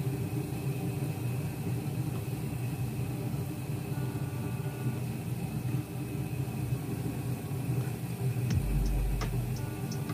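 A steady low hum. About eight and a half seconds in, a beat of deep bass and light, evenly spaced ticks comes in: background music.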